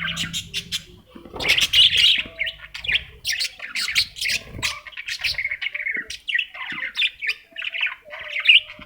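Baby parrots calling continuously in rapid, overlapping chirps and harsh squawks.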